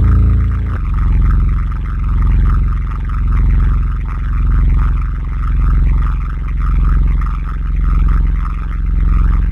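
Scary low-pitched rumble sound effect: a deep, continuous drone that swells and fades about once a second, its texture shifting slightly a little under a second in.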